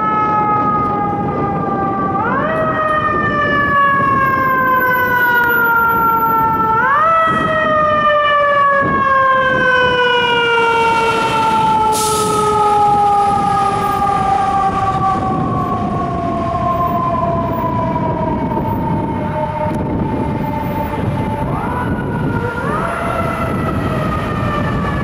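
Siren of FDNY Engine 34, a fire engine, responding. It is wound up several times, each time rising quickly in pitch and then slowly falling, over steady low traffic noise, with a short hiss about halfway through.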